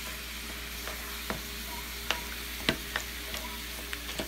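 Ground beef sizzling in a frying pan while a wooden spoon smashes and breaks it up, with scattered knocks and scrapes of the spoon against the pan over the steady sizzle.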